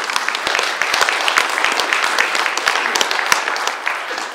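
Audience applauding: a dense patter of many hands clapping that holds steady and starts to die down near the end.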